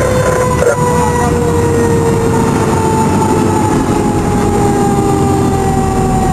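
Fire engine's siren winding down in one long, slowly falling wail, over the truck's engine and road noise.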